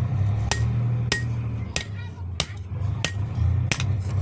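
Blacksmith's hand hammer striking metal on an anvil, forging at a steady pace of about three blows every two seconds, some blows leaving a short metallic ring, over a steady low hum.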